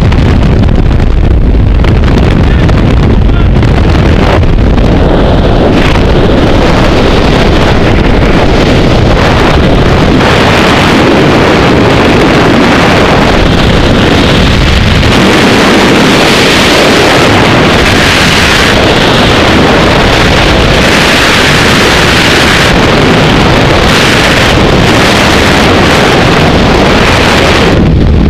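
Loud, steady freefall wind rushing over the camera's microphone during a skydive. About halfway through, the low rumble thins and the rush turns higher and hissier.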